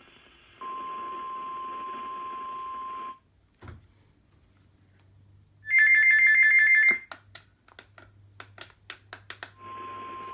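NOAA Weather Radio alert audio: a steady 1050 Hz warning alarm tone over radio static for about two and a half seconds, signalling an incoming warning. After a pause, a loud, shrill two-tone burst about a second long, a run of clicks, then the static and the tone start again near the end.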